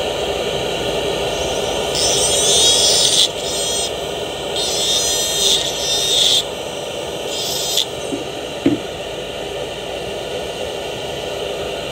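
Dental lab handpiece and extraction running with a steady whir, with three bursts of harsher high hiss as the bur trims the underside of the implant restoration.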